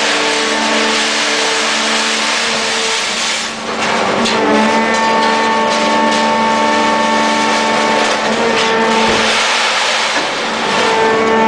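Leopard 34 FLW scrap-metal baling press running under load: its hydraulic drive gives a loud, steady whine over a broad rushing noise. The pitch of the whine changes twice, about four seconds in and again near nine seconds, as the press moves through its compression and ejection strokes.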